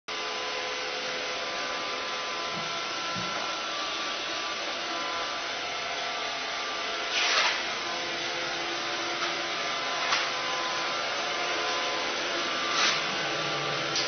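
Roomba robot vacuum running with a steady hiss and motor hum, broken by a few short louder swishes and knocks, the biggest about seven seconds in.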